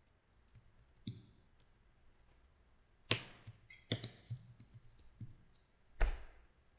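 Computer keyboard typing and clicking: scattered short keystrokes, with louder clicks about three, four and six seconds in.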